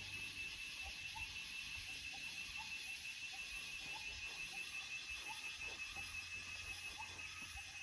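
Steady high-pitched insect drone, with faint short rising chirps repeating every half second or so.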